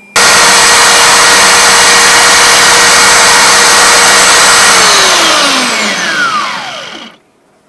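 Electric sander motor running at full speed with a steady whine, starting abruptly; about five seconds in it is switched off and winds down, its pitch falling until it stops a couple of seconds later.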